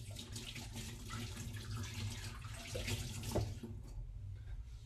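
Water running from a kitchen tap as hands are washed under it, shut off about four seconds in.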